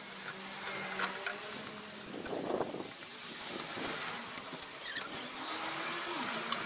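Small clicks and rustles of wires and a small circuit board being handled, over steady outdoor background noise.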